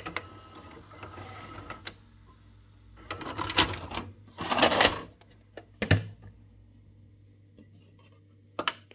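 Funai 31B-250 four-head VHS video recorder: a button click, then the tape mechanism's motor whirring for about two seconds as it unloads the tape. Loud plastic clatter follows as the cassette is ejected and pulled from the slot, then a sharp knock about six seconds in and a button click near the end.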